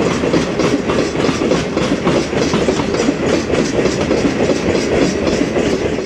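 Freight train's wheels clattering over rail joints at close range in a rapid, steady clickety-clack with a rumble underneath.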